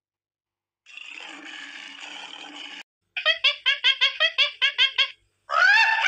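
Animal calls: a short noisy rasping stretch, then a quick run of short pitched calls about six a second, then louder, longer calls that rise and fall near the end.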